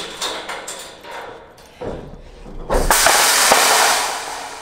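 Steel rear ramp gate of a utility trailer clanking as it is let down, then falling the whole way and crashing onto the ground about three seconds in. The crash is very loud and keeps clattering and ringing for over a second before fading. The gate's fastening gave way: it broke as it was being lowered.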